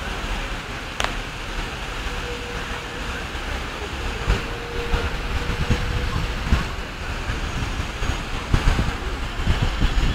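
Outdoor city square ambience: the steady splashing wash of a large fountain mixed with traffic, with wind buffeting the microphone in low gusts, more so in the second half.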